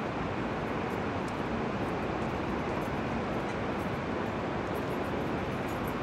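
Steady city street background noise, a constant hum of traffic with no distinct events standing out.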